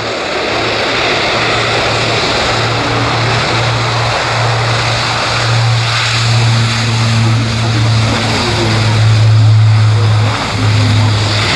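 Airbus A400M Atlas's four TP400 turboprop engines with eight-bladed propellers on a low pass: a loud, steady, low propeller drone over the rush of engine noise. It grows louder toward the end, dipping briefly just after its peak.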